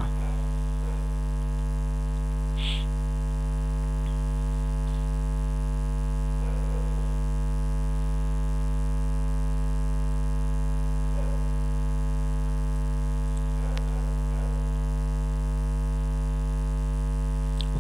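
Steady electrical mains hum: a low, unchanging drone with a stack of overtones. A few faint, brief sounds come and go over it.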